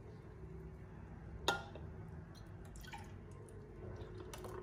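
Frothed milk poured from a glass jug into a glass mug: one sharp clink of glass about a second and a half in, then soft pouring and dripping with a few light taps.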